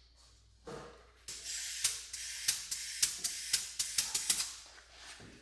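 Compressed air hissing into a pressurised transmission-fluid (ATF) fill tank as it is charged through its air valve, in short blasts with a run of sharp clicks, after a brief knock near the start.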